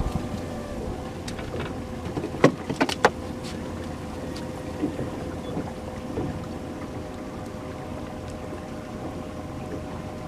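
Handling of a handheld fish scale and a large bass: a quick run of about four sharp clicks about two and a half seconds in, over a steady faint hum and background noise.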